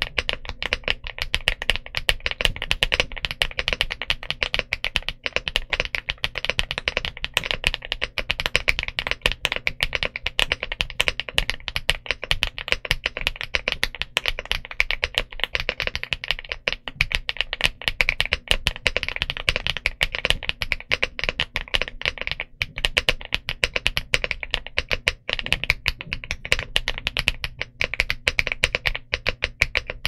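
Continuous fast typing on the Elec Fox Inky75 mechanical keyboard, a dense stream of key clicks with no pauses.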